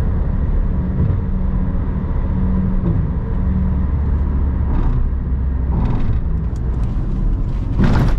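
Steady low drone of a Chevrolet Cruze cruising at highway speed in fifth gear, as heard inside the cabin: engine hum with road and tyre noise. Near the end there is a brief loud rush.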